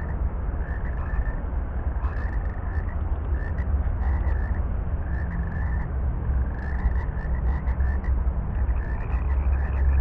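Frogs calling from a duckweed-covered pond: short croaks repeated at irregular intervals, over a steady low rumble.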